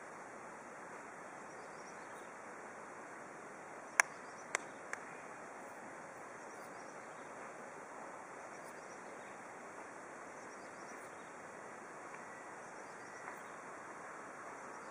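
Steady outdoor background hiss, with three sharp clicks in quick succession about four seconds in.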